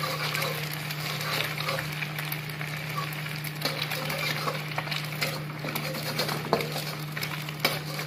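Egg frying in hot oil in a metal kadai, sizzling and crackling steadily as a fork scrambles it, with sharp ticks and a few louder clicks of the fork against the pan. A steady low hum runs underneath.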